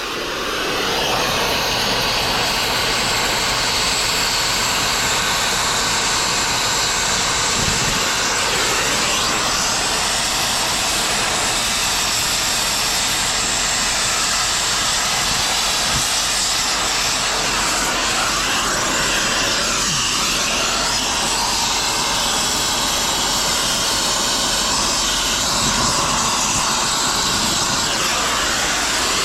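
A loud, steady machine noise with a strong hiss, rising over the first second and then running unbroken.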